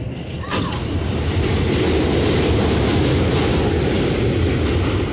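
R211 subway car running on elevated track, heard from inside the car. The wheel and track noise rises to a loud, steady rumble about half a second in, just after a brief sharp sound.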